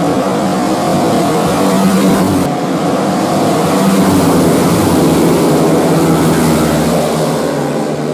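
A pack of 150cc four-stroke underbone racing motorcycles revving hard and accelerating away together, many engines at once at high revs.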